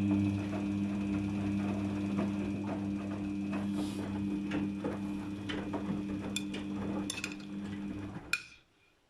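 Daewoo DWD-FT1013 washing machine on a Cotton 40°C wash, its motor humming steadily with scattered clicks and knocks from the turning load. It stops with a click near the end.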